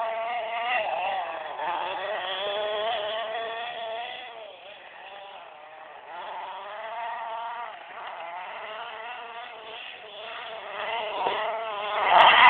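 Small nitro engine of a CEN Genesis RC monster truck running under changing throttle, its high whine rising and falling in pitch. It fades while the truck is far off mid-way and gets much louder in the last second as the truck comes close.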